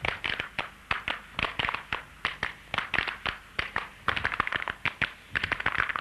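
Rapid, irregular clusters of sharp wooden clacks from percussion played in a dance routine, several strokes a second.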